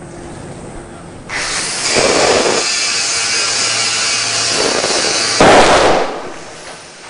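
A grinder grinding steadily from about a second in. About five seconds in, a sudden louder burst cuts in and dies away over a second or so: the charging car battery's hydrogen gas exploding.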